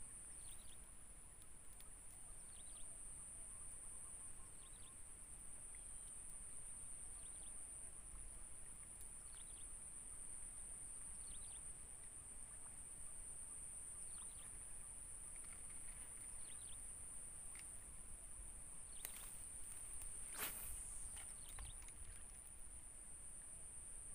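Steady high-pitched insect drone from the swamp grass, with faint scattered chirps and a couple of sharp clicks near the end.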